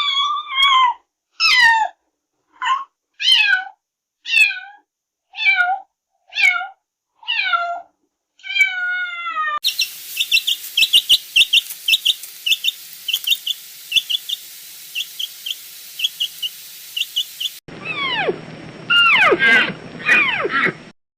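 Domestic cat meowing repeatedly, about nine drawn-out meows roughly a second apart, each falling in pitch. An abrupt cut brings rapid, evenly spaced high-pitched chirping over a hiss. Another cut about three seconds before the end brings overlapping calls that fall in pitch.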